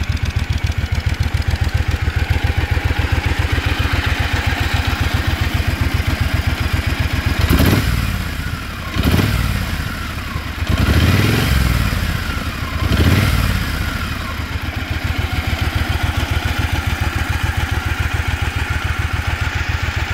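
2015 Triumph Thunderbird Commander's 1700cc parallel-twin engine with its stock exhaust, idling with an even pulse. About seven seconds in the throttle is blipped four times, each rev rising and dropping back, then the engine settles back to idle.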